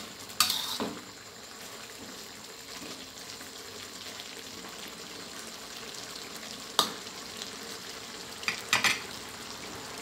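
Catfish and Thai eggplant in red curry sauce sizzling steadily in a metal wok while a spatula stirs and scrapes the pan. Sharp clinks of the spatula on the wok come about half a second in, near seven seconds, and a few more near the end.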